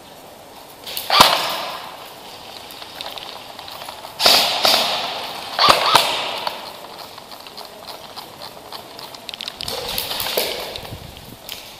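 Airsoft guns firing single shots: sharp cracks about a second in, around four seconds, and two close together near six seconds, with a rougher cluster of snaps near ten seconds.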